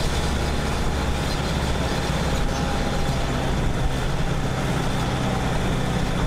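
Sprinter shuttle van driving uphill, its engine and road noise heard from inside the cabin as a steady low hum.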